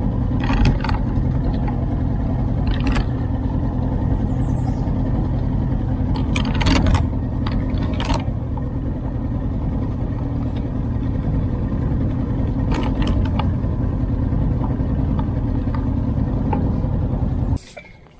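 Boat motor running steadily with the boat under way, with sharp clicks and knocks now and then. The motor sound cuts off suddenly near the end.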